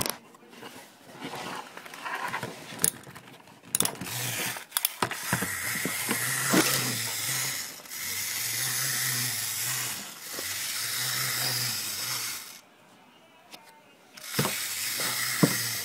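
Clockwork wind-up toy polar bear: scattered clicks at first, then its spring-driven gear train whirs steadily as the toy walks, stops about twelve seconds in, and whirs again near the end.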